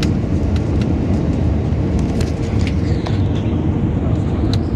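Airbus A320 cabin noise on approach to landing: a loud, steady low rumble of the engines and airflow, with a faint steady tone underneath and a few faint clicks.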